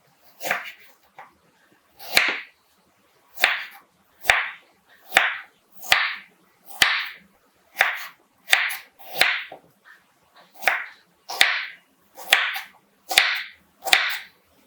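A knife chopping on a cutting board in steady, repeated strokes, about one sharp chop a second.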